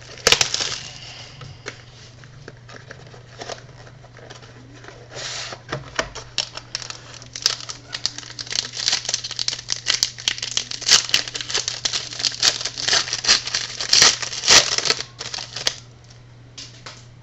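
Packaging of a hockey card box being opened by hand: crinkling and tearing of wrapper with quick clicks as the cards are handled. It is busiest in the second half and stops about a second and a half before the end, over a steady low electrical hum.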